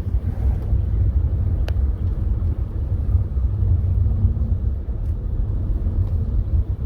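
Lexus GS350 on the move: a steady low rumble of engine and road noise. A faint single tick is heard about two seconds in.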